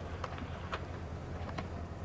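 Open-air ballpark ambience: a steady low rumble, with a few faint, distant knocks.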